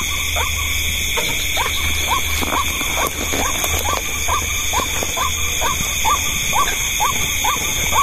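White-breasted waterhen (ruak-ruak) calling a monotonous run of short 'kook' notes, each rising and falling, about two a second, over a steady high-pitched shrill background.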